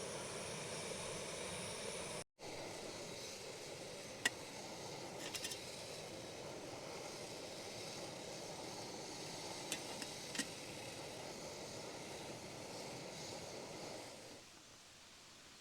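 Steady rushing water noise with a few sharp clicks. It cuts out for an instant about two seconds in and falls to a quieter hiss near the end.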